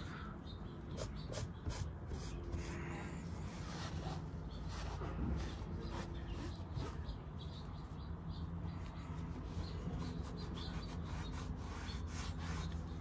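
Microfiber towel rubbing over a textured plastic car door panel, wiping in protectant dressing: an uneven run of short scuffs and swishes. A low steady hum sits underneath.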